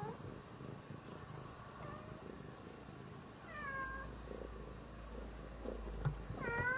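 A cat meowing several times in short calls whose pitch curves, the clearest ones near the middle and at the end. A single soft knock comes just before the last meow.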